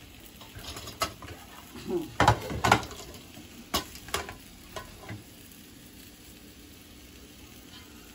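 A metal ladle scraping and clinking against steel pots as boiled basmati rice is scooped and layered over chicken masala for biryani. The sharp clinks and scrapes come in the first half, then die away to a low background.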